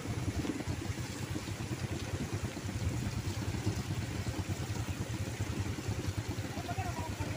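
Motorcycle engine running at a steady pace with road noise from riding over a rough dirt road, a constant low rumble.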